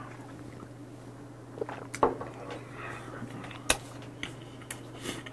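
Eating and drinking sounds after a shot of soju: a few small clicks and knocks, one of them a glass shot glass set down on a wooden table, with soft chewing. A steady low hum runs underneath.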